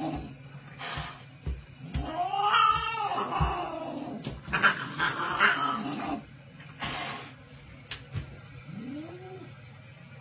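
Cat yowling and hissing at a dog: a drawn-out yowl that rises and falls about two to three seconds in, noisy hissing over the next few seconds, and a short, fainter yowl near the end, with a few soft thumps among them.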